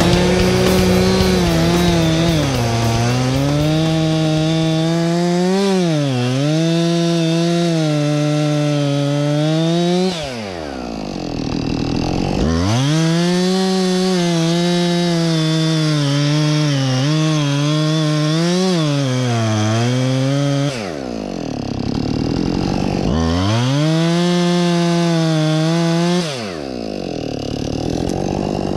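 Husqvarna 576XP two-stroke chainsaw at full throttle cutting into a poplar trunk, its pitch dipping again and again as the chain bogs down in the wood. Three times the throttle is let off and the engine winds down toward idle; twice it is revved back up into the cut.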